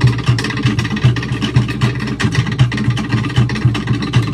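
Cook Islands drum ensemble playing a fast, even rhythm: quick sharp beats on wooden slit drums over a deeper drum pulsing underneath.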